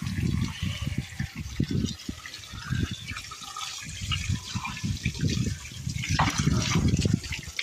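A stream of water pouring onto a whole raw chicken and splashing on the tile floor, with irregular low thuds and slaps as the wet carcass is rubbed and handled by hand.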